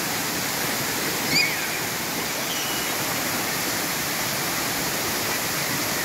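Steady rush of a waterfall pouring into its pool, an even, unbroken hiss. A brief high call cuts in over it about a second and a half in.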